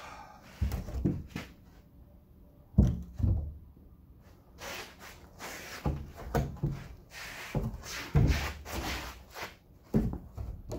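Tall live-edge wood slabs being shifted by hand, thudding and knocking against each other and the floor at irregular intervals, with scraping as they slide between the knocks.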